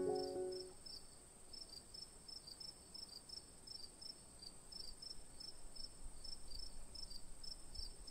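Faint crickets chirping: short high chirps repeating a few times a second over a steady high trill. Piano music dies away in the first second.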